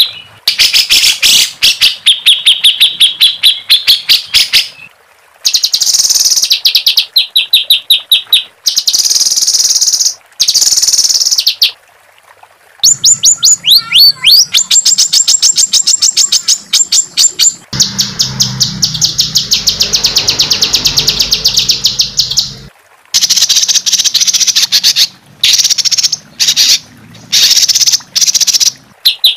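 Songbird singing harsh, rapid-fire repeated notes in high trills of one to two seconds, broken by short pauses, with one long unbroken trill of about five seconds in the middle. These are the rough 'tembakan' (shot) and rolling phrases used in Indonesian masteran audio for teaching cage birds.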